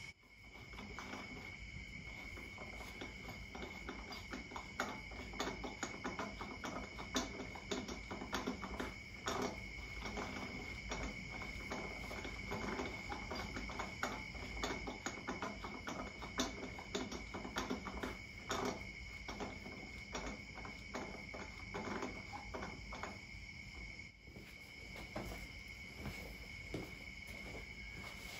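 Crickets chirping in a steady night chorus, with many small metallic clicks and knocks as a wheel is hung back on the hub and its lug nuts are threaded on and tightened.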